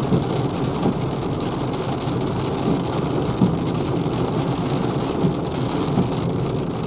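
Rain beating on the windscreen and roof, heard from inside the cabin of a Renault Zoe electric car, over the steady noise of its tyres on the wet road. A few sharper drop hits stand out now and then.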